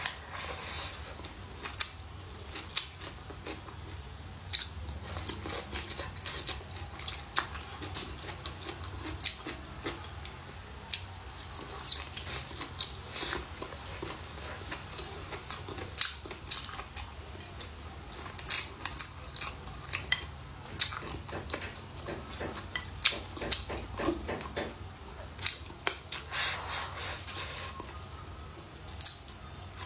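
A person chewing and biting soft, wet food (blistered green chili peppers and braised pork), with many irregular sharp mouth clicks and smacks.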